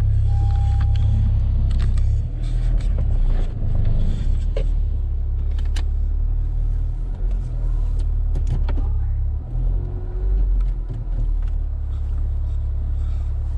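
Honda Civic Si engine running with a steady low rumble that dips and swells a couple of times, with scattered clicks and knocks over it.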